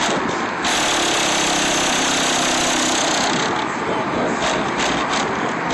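Car-audio bass from Kicker subwoofers in the back of a Dodge Magnum R/T, played loud enough to overload the recording into dense, distorted noise.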